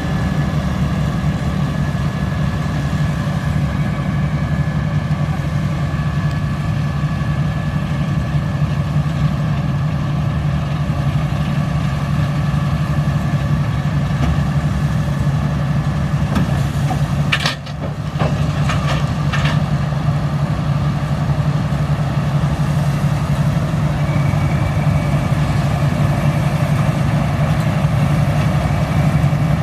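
Heavy diesel farm-machine engine running steadily at constant speed, with a brief break and a few clicks a little past halfway.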